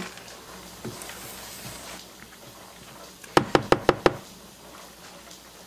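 Rubber spatula scraping cookie dough down the sides of a stand-mixer bowl. A little over three seconds in come about five quick sharp knocks of the spatula against the bowl.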